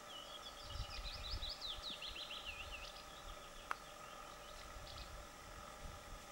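A small songbird singing: a fast run of short, high notes for about three seconds, trailing off into fainter notes. There is one sharp click a little past the middle.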